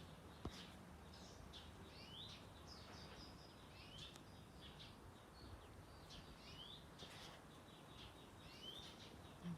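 Faint bird chirps outdoors: short rising notes repeated about once a second over a steady low background noise.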